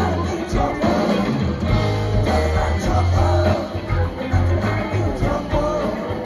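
Live rock band playing: electric guitars, bass guitar, drums and keyboard in a full, loud mix, with a melodic lead line over steady bass notes.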